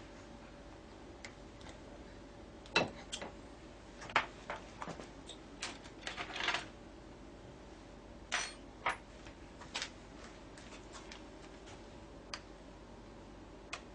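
Irregular small metal clicks and short scrapes as a tool works the plug and pins out of a drilled pin chamber in a brass lock cylinder.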